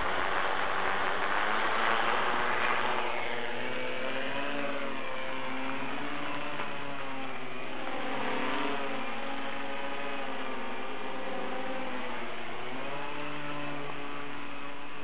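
Homemade quadcopter's electric motors and propellers whirring as it takes off and flies, with a rush of noise in the first few seconds, then a steady multi-tone hum that wavers up and down in pitch as the throttle changes.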